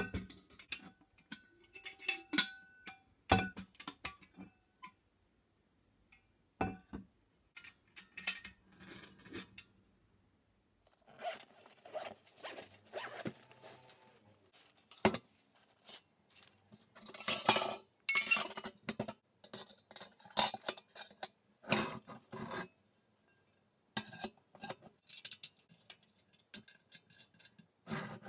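Handling a stainless-steel kettle and metal camp-stove parts: repeated clinks and knocks of the kettle's hinged lid and steel pieces, some with a brief metallic ring. In the middle come longer stretches of rustling and zipping from a padded stove carry bag.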